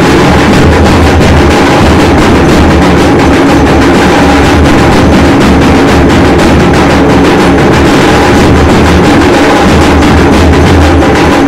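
Loud, continuous drumming and percussion of a Hindu temple's evening aarti ceremony, with fast repeated beats.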